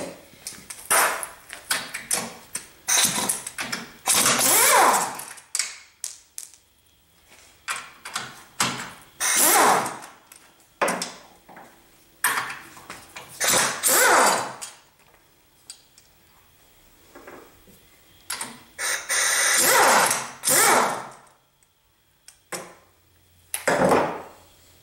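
Pneumatic impact wrench running in repeated short bursts of a second or two, its whine gliding up and down, as fasteners are undone during the teardown of a compressor pump.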